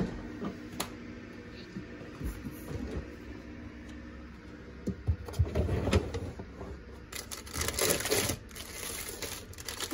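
A refrigerator door pulled open and a drawer slid out, with clicks and knocks, then louder thumps and a plastic zip-top bag crinkling as it is handled and lifted out.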